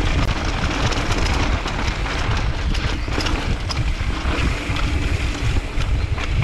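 Wind rushing over an action camera's microphone as a mountain bike descends a dry dirt trail, with tyre noise and frequent sharp rattling clicks from the bike over bumps.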